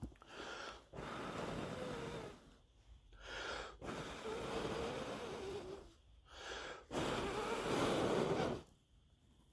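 A person blowing out three long, wavering breaths, each after a quick in-breath; the last blow is the loudest.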